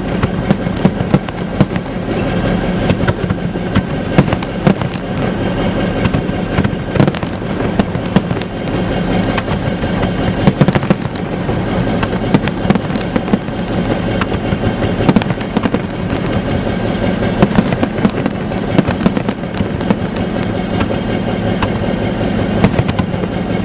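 Aerial fireworks display going off continuously: a dense, unbroken run of bangs and crackling, many shells bursting close together.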